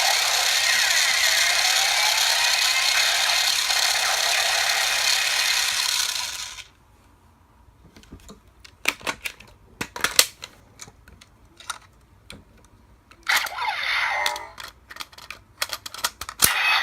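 DX Drill Crusher toy weapon playing a loud whirring electronic sound effect through its speaker for about six and a half seconds, which then stops. Scattered plastic clicks follow as the toy is handled, with a shorter burst of sound about thirteen seconds in.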